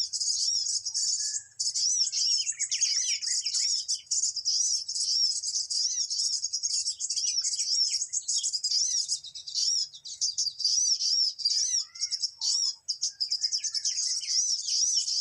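Small songbird chirping rapidly and continuously: a dense run of short, high arched chirps repeated several times a second. It is a lure call used to attract birds for trapping.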